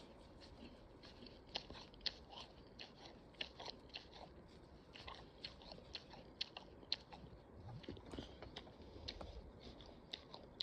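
Faint crinkling and irregular small clicks of blue plastic string being wound and knotted around a wooden door's latch to tie it shut.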